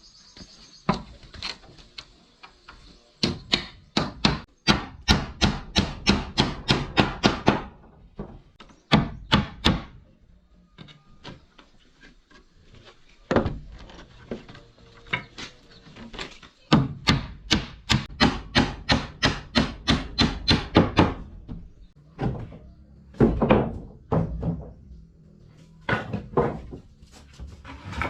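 Hammer striking wood: two long runs of quick, regular blows, about three a second, with single and paired blows between them.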